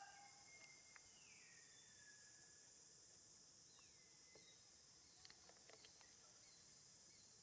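Faint outdoor ambience: a steady, high insect drone, with two thin, falling whistled calls and a few light clicks.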